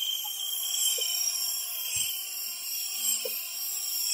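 Experimental ambient noise soundtrack: a dense high hiss with several wavering high whistling tones, a few faint short blips, and a low thud about two seconds in.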